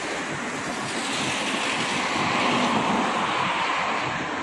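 Road traffic: the noise of a passing vehicle swells and fades, loudest a little under three seconds in.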